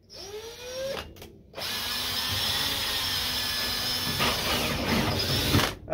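Cordless drill with a hole saw cutting through a plastic bucket lid. The motor spins up with a rising whine, stops briefly, then runs steadily for about four seconds as the saw cuts through the plastic.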